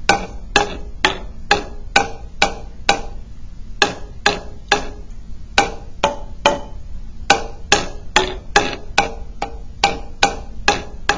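Metal spoon tapping a row of glass bottles filled to different levels with coloured water, playing a simple tune. About two taps a second in short phrases, each tap a short ringing note whose pitch changes from bottle to bottle.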